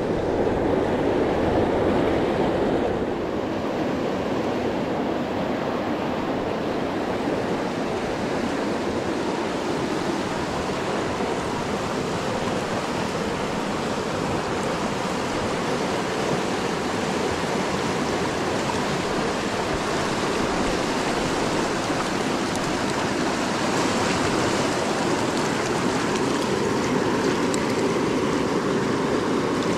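Steady rush of a fast river running over rocks in rapids, a little louder for the first three seconds.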